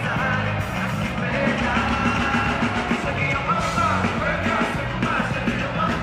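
Live band music with male voices singing into microphones over a steady bass beat.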